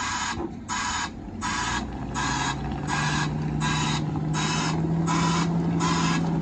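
Reversing alarm on heavy equipment, sounding in regular hissing pulses about every three-quarters of a second. A steady engine hum comes in underneath about a second and a half in.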